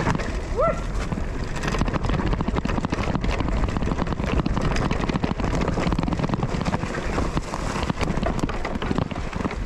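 Mountain bike being ridden over a rough dirt trail: a steady, dense clatter of tyres and rattling bike parts, with wind on the microphone.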